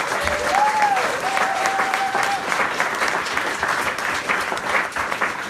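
Audience applauding, many hands clapping steadily, with a brief high call rising over it in the first two seconds.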